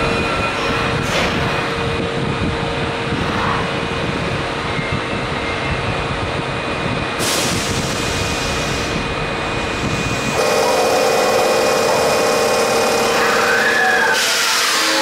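Electric metro train at an underground station platform: steady running noise and hum, growing louder about ten seconds in, with short hisses of air about halfway through and near the end. Just before the end, a whine rises and falls.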